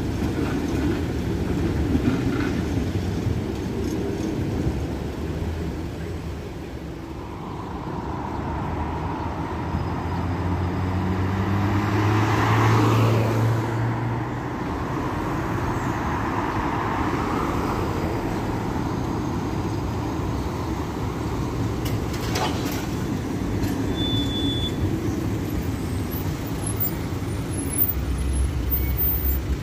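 LVS-86 tramcars passing over steady street traffic: a low hum that rises in pitch and grows loudest about halfway through, with a higher whine alongside it, then falls away. A single sharp click comes later.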